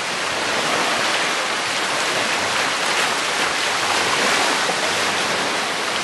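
Surf washing onto a sandy beach and swirling around shallow water: a steady, unbroken rush of water.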